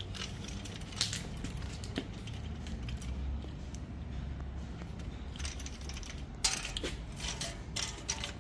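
Light metallic clicks and clinks as a new fuel pump and sending unit assembly is worked up into a car's fuel tank opening, a few separate clicks at first, then a busy run of rattling clicks near the end.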